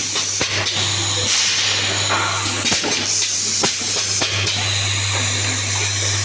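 Automatic confetti filling machine running: a steady low hum under a constant hiss, with irregular clicks and knocks from the mechanism.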